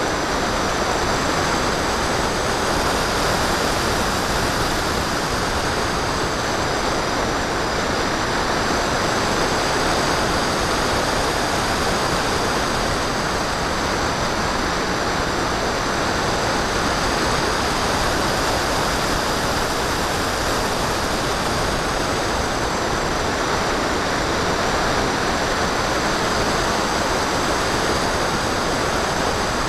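Steady rush of airflow over the onboard action camera of a Phantom FX61 electric flying wing in flight, with the high whine of its pusher motor and propeller slowly rising and falling.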